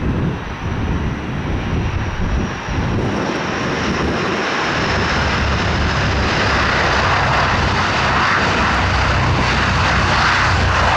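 Antonov An-12B's four turboprop engines growing louder over the first few seconds, then holding at a steady level as the aircraft comes in to land, with a faint high whine falling slowly in pitch. Wind gusts rumble on the microphone early on.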